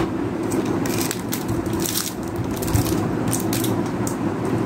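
Crinkling and crackling of the clear plastic film wrapped around a new wireless keyboard as it is handled, over a steady low background hum.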